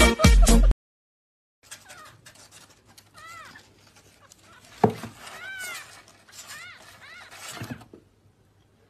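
Music cuts off within the first second. After a short pause, a cat gives several short, high, rising-and-falling mews, with a single sharp thump between them.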